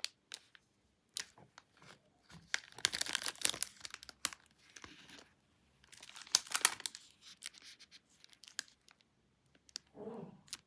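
Plastic wrapper of a Kinder Delice bar crinkling and tearing in irregular bursts, with scattered crackles and clicks between them.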